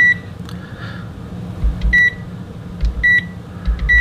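Sanwa handheld LCR meter beeping as its test-frequency button is pressed repeatedly: four short, high beeps, one at the start and three in the second half, each with a dull knock of the button press. The meter is being stepped through its test frequencies.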